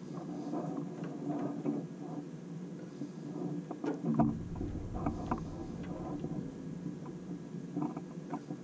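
Small metal clicks and knocks of hands handling and adjusting a Laguna 18BX bandsaw's Carter roller-guide assembly and lock lever on its guide post, over a steady low hum; a low rumble joins about four seconds in.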